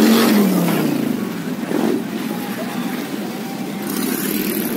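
Motorcycle engine sound whose pitch falls over the first second, then steady engine and road noise.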